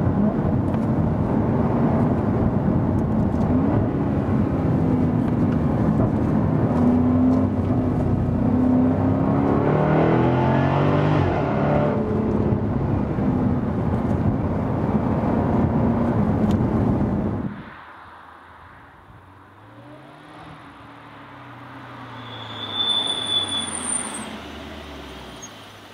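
Jaguar F-Type SVR's supercharged V8 revving hard, its engine and exhaust note climbing and dropping in pitch as it accelerates and shifts. About seventeen seconds in, the sound cuts to a much quieter engine whose pitch rises and then falls.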